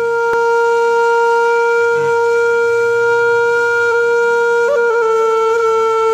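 Background music: a wind instrument holds one long, steady note, with a brief waver in pitch about three-quarters of the way through.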